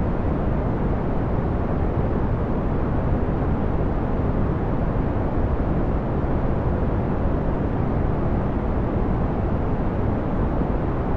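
Steady brown noise: an even, deep rushing hiss, heaviest in the bass and fading toward the treble, unchanging in level.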